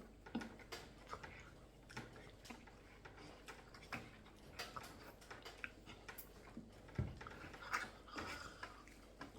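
Faint, irregular clicks and small knocks of people eating, with no steady rhythm; one slightly louder knock about seven seconds in.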